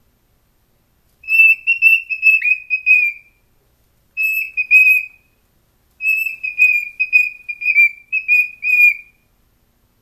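Young male cockatiel singing to its reflection in a mirror, in three phrases of clear whistled notes held at much the same pitch. The first phrase starts about a second in and lasts about two seconds, a short one follows, and a longer phrase of several notes runs from about six to nine seconds.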